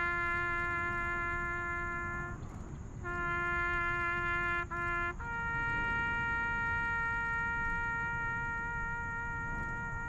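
A horn blowing long, steady held notes: one note, a short break about two seconds in, the same note again, then a step up to a higher note about five seconds in that is held to the end. A low rumble of noise runs underneath.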